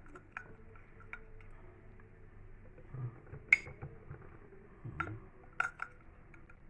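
Several sharp, short clinks of glass jars and kitchen utensils being handled while packing pickling jars, the loudest about three and a half seconds in.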